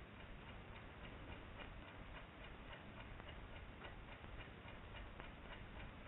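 A clock ticking faintly and steadily, about three ticks a second, over a low hiss.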